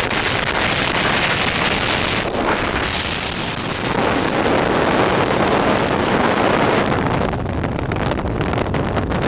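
Wind rushing over the microphone together with road noise from a car driving at highway speed, a loud, steady rush.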